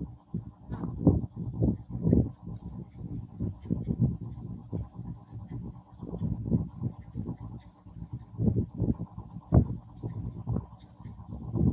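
Crickets trilling steadily at a high pitch, with irregular low rustling and soft knocks from a marker writing on a wall chart.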